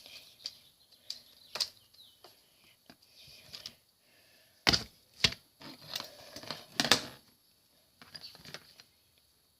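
Hard plastic remote-control parts clicking and knocking as they are handled and pressed into the casing: a series of separate sharp clicks, the loudest cluster about five to seven seconds in.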